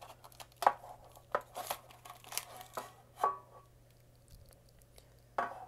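Foil Pokémon booster pack crinkling and the tin's cardboard insert rustling as they are handled, in short scattered crackles that die away for a second or two before the end.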